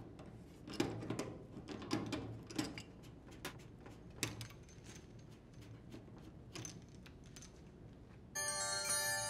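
Faint scattered clicks and taps of pliers and threaded hose couplings as a washer's water supply hoses are loosened and unscrewed from the inlet valves. Near the end, a louder bright chime of several held tones comes in.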